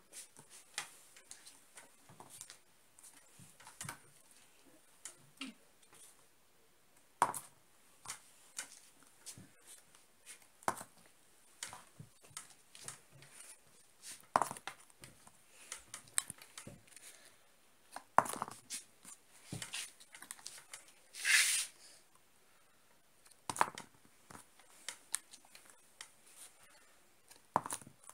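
Scattered light taps and clicks of hands working a homemade cardboard game model, cardboard and plastic pieces knocking on a cardboard board, with one short, louder scraping rasp about twenty-one seconds in.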